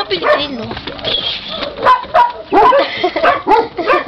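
Small dogs barking and yipping in quick, excited bursts, coming thick and fast in the second half.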